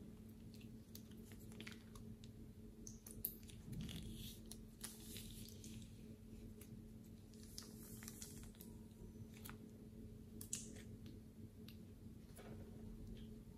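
Faint crinkling and squishing of a plastic piping bag being squeezed as thick purple liquid is pushed out into a glass bowl, with scattered small clicks and rustles, over a steady low hum.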